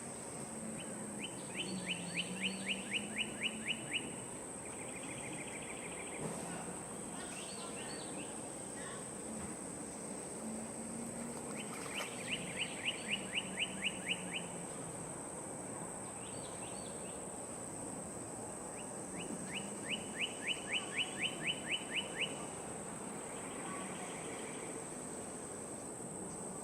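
A songbird singing the same phrase three times, each a quick series of about ten downward-sliding notes followed by a short buzzy trill, over a steady high-pitched insect drone.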